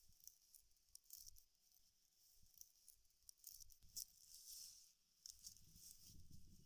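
Faint dry rustling and crackling of palm-fibre sheaths being pressed and shifted by hand on a stone slab. A duller handling rumble comes in near the end as the bundle is lifted.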